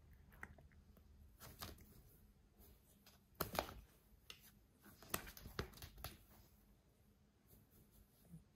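Faint, scattered crackles and taps of a cardboard box as a cat shifts and stretches inside it, a little louder around the middle.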